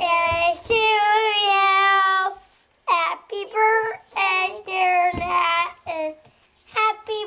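A young child singing in a high voice without clear words: one long held note, then after a short pause a string of shorter notes with brief breaks between them.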